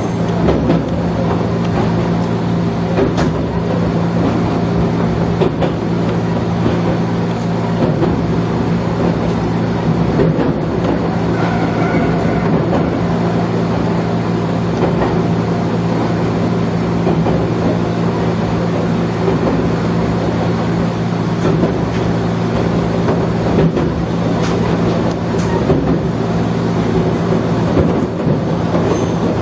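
Electric railcar running along the line, heard from inside the car: a steady low hum with rumble and a few faint clicks of the wheels over rail joints.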